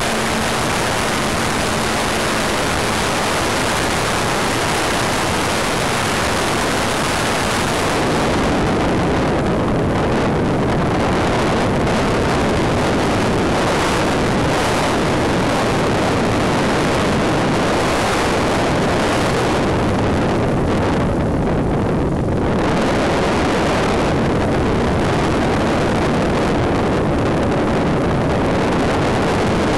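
Loud steady rush of wind over the onboard camera's microphone on a flying Wot 4 radio-controlled model plane, mixed with the plane's motor. A faint steady hum sits under it for the first several seconds, and the rush turns duller for a couple of seconds twice.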